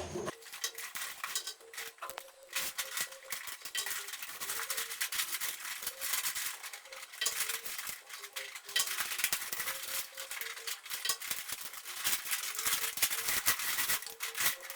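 Paper crinkling and rustling in quick, irregular crackles as it is pressed and glued onto a cardboard box.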